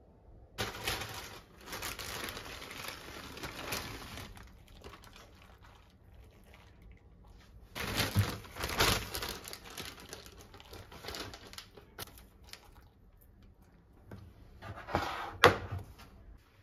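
Clear plastic zip-top bag crinkling in bursts as handfuls of grated cheese are taken out of it, with a sharp knock near the end.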